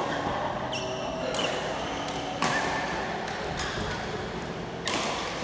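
Badminton play in a sports hall: a few sharp hits and high squeaks from rackets striking the shuttlecock and sneakers on the court mat, with the hall's echo.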